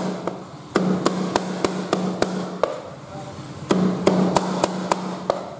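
Cleaver chopping raw sea snake meat on a cutting board, mincing it to a paste: two runs of quick, even strikes, about three or four a second, with a short pause between them.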